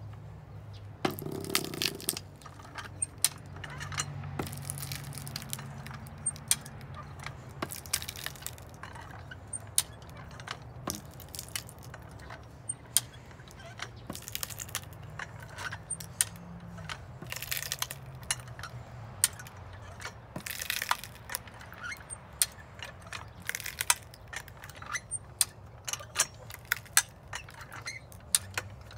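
Hi-Lift farm jack being pumped: repeated sharp metal clacks from its ratcheting climbing pins and handle as a welded scrap-steel wedge is forced down into a red oak round. Now and then a short noisy burst of the oak cracking and splitting.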